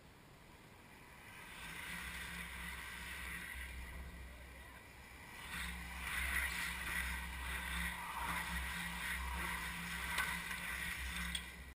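A bunch of road racing bicycles sweeping through a corner close by, tyres and drivetrains making a whooshing rush. It builds about a second and a half in and grows louder about five and a half seconds in as the main pack streams past.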